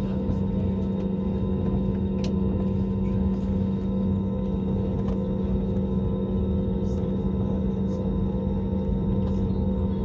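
Steady hum of an Airbus A320neo taxiing, engines at idle, heard inside the cabin, with several steady tones over a low rumble and no spool-up. A single short click about two seconds in.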